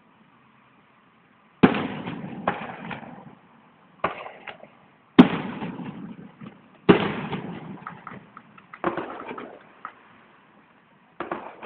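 Aerial firework shells bursting: about half a dozen sharp bangs a second or two apart, each followed by a rumbling echo that dies away, with a few smaller cracks in between. Heard through an old phone's microphone.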